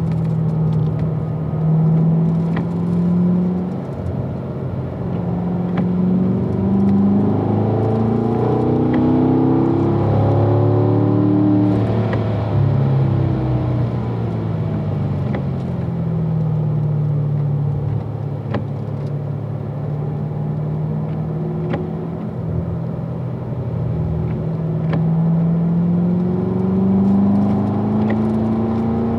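Corvette Grand Sport's 6.2-litre V8 in third gear at low to mid revs, heard from inside the car. The engine note climbs as the car accelerates, drops as it slows, holds steady, then climbs again near the end.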